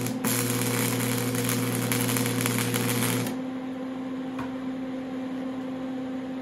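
Electric arc welding a nut onto 1-inch threaded rod: the arc runs with a steady hiss and hum, then cuts off sharply about three seconds in. A quieter steady hum remains after it.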